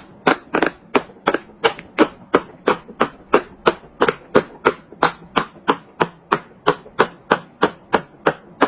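Silicone Pop-It bubbles being pushed through one after another, a sharp pop about three times a second in an even rhythm.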